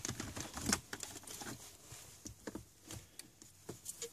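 Scattered light clicks and taps of a red plastic trim-removal tool against the plastic trim of an Audi Q7's centre console as it is pried at.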